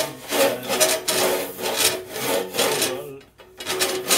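Long-handled organ-pipe rasp scraping around the inside of a large metal organ pipe as the pipe is turned on it, in rasping strokes about two or three a second, with a short pause about three seconds in. The rasp is cutting away solder drips inside the pipe. A steady tone sounds underneath.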